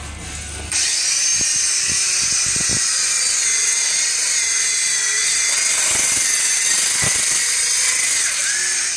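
Handheld electric rotary-blade meat trimmer switched on about a second in and running with a steady high whine as it shaves the dried outer crust off a dry-aged beef rib. The pitch dips briefly near the end.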